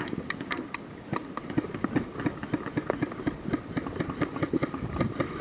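A run of irregular clicks and knocks, several a second, over a steady rustling background.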